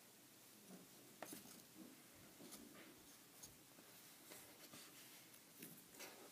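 Near silence, with faint, scattered rustles and light taps from hands handling and turning over a plush toy.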